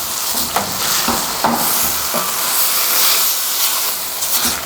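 Squid and vegetables sizzling in a hot pan of lard as they are stir-fried: a steady loud hiss with a few short knocks as the food is tossed.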